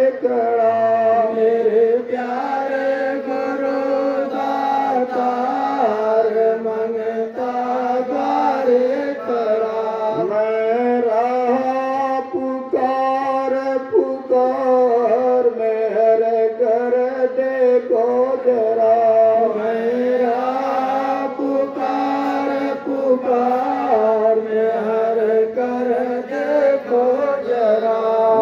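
A man singing a Hindi devotional prayer through a microphone and loudspeaker: a slow, sustained melody over a steady drone.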